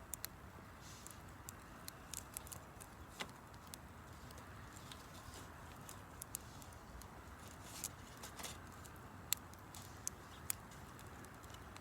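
Wood campfire crackling: irregular sharp pops and snaps over a faint steady hiss, with a couple of louder snaps late on.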